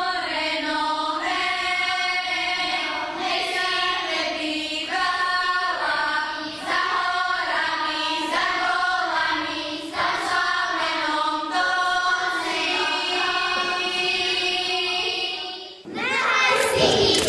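A group of girls singing a Slovak folk song together, in phrases of a couple of seconds with short breaks between them. The singing cuts off near the end, and a different, louder sound takes over.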